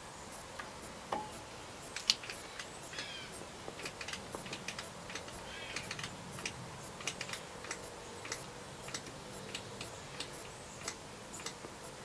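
Pistol-grip grease gun being pumped into a backhoe pin's grease fitting: a string of light, irregular clicks from the lever as grease is forced in.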